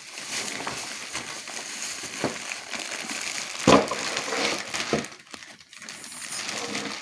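Plastic bag rustling and crinkling as hands rummage inside it and pull out an item in plastic packaging, with one sharp knock a little past halfway.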